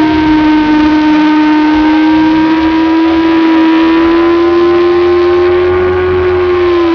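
Motorcycle engine held at high revs through a long leaning corner, the pitch creeping slowly upward and then falling off near the end, over a steady rush of wind.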